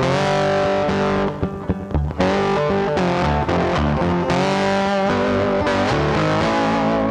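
Instrumental background music led by a distorted electric guitar over bass, with notes that slide in pitch. It thins out briefly between about one and two seconds in.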